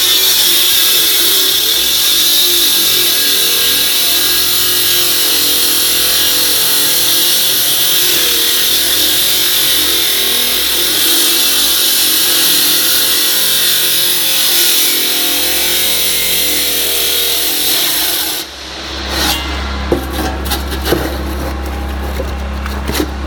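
Concrete saw cutting a concrete slab: a loud, steady, high grinding hiss with a wavering motor pitch underneath. The cutting stops suddenly about 18 seconds in, leaving a low hum with scattered knocks.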